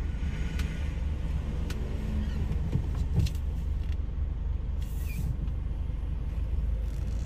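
Steady low engine and road drone heard from inside a slowly moving vehicle's cabin, with a few light clicks.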